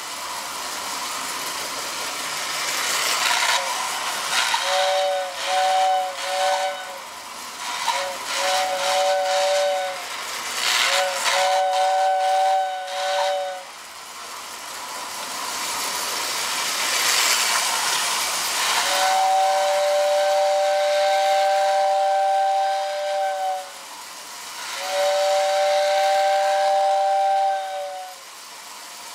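1948 Lionel 2026 model steam train running on its track, its whistle sounding a steady two-note chord. First comes a string of short toots, then near the end two long blasts, over a rushing hiss.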